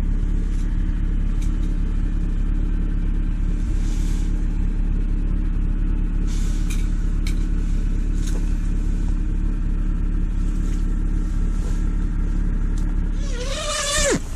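A steady low motor hum, with a few faint clicks through it. Near the end a brief tone falls sharply in pitch.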